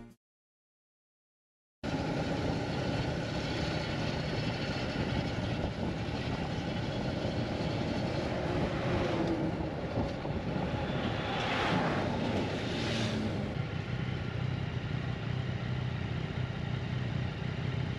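Silence for about the first two seconds, then motorcycle ride noise: a steady engine rumble mixed with heavy wind noise on the microphone. There are two brief swells of hiss about eleven to thirteen seconds in.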